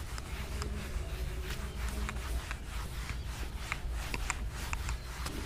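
Whiteboard duster rubbed back and forth across a whiteboard to erase marker writing: a quick run of short scraping strokes.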